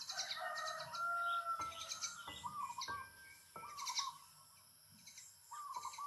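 Common hill myna calling: a run of short whistled notes mixed with sharp, high chirps.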